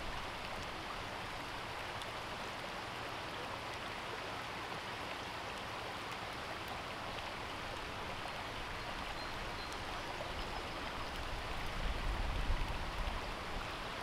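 Shallow garden stream running over rocks and pebbles: a steady, even rush of water. A brief low rumble comes in near the end.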